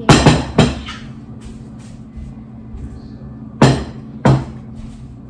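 Dishes set down on a wooden dining table: a bowl lands in a quick cluster of three knocks at the start, then a plate goes down with two more knocks about three and a half and four seconds in.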